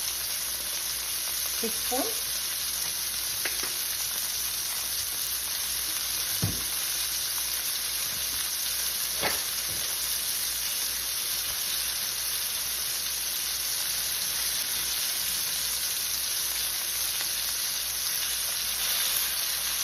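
Chicken breast pieces pan-frying in oil, a steady sizzle, with a few sharp knocks, the loudest about six seconds in.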